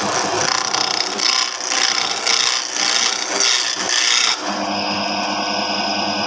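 Turning chisel cutting a wooden spinning-top blank on a small lathe: a rasping scrape that comes in uneven strokes. About four seconds in it changes abruptly to a steadier sound with a low hum.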